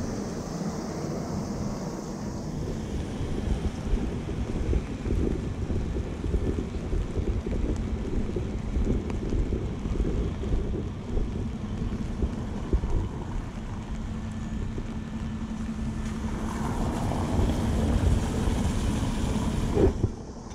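Wind buffeting the microphone, a loud fluttering low rumble, with a faint steady hum joining about halfway through and fading a few seconds before the end.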